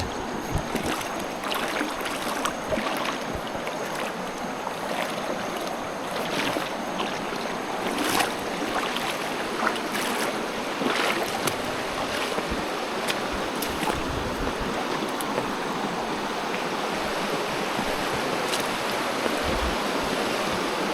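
Chakpi River water flowing, a steady rushing noise with short sharp ticks now and then.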